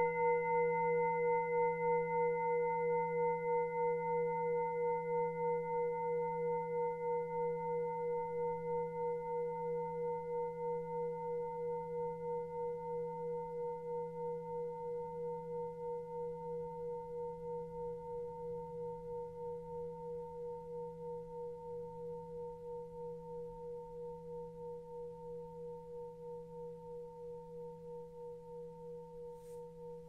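Tibetan singing bowl ringing out after a strike, several steady tones slowly fading with an even, slow wavering. The higher overtones die away within the first few seconds while the lower tones linger. The strike marks a change of hand position in a Reiki session.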